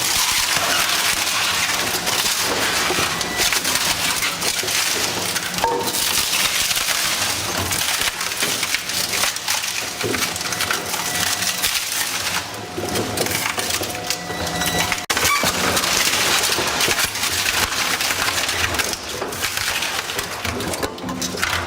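WEIMA Vampire 1300 single-shaft shredder shredding wood: a continuous, dense crackle of splintering and crushing wood over the machine's steady low hum.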